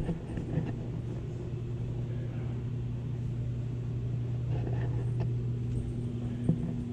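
A steady low hum of indoor background noise, with a few faint clicks; a second, slightly higher steady tone joins near the end.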